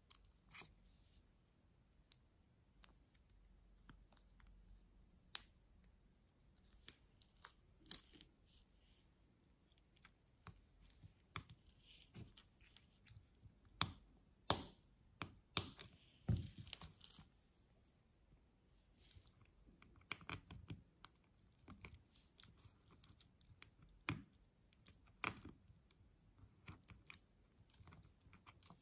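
Small plastic clicks and scrapes as an Apple Magic Keyboard 2 key's plastic retainer and clips are worked into place with fingers and a small metal pick, with irregular sharp snaps as the clips are pushed down; the loudest run of clicks comes about halfway through.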